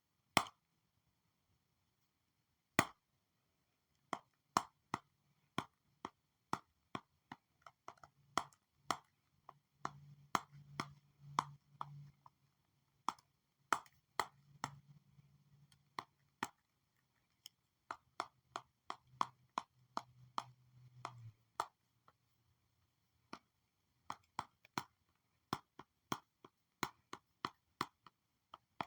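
Stylus tapping on a drawing tablet during digital drawing: a long run of short, sharp clicks at uneven spacing, often one or two a second with a few pauses, and a faint low hum in the middle stretch.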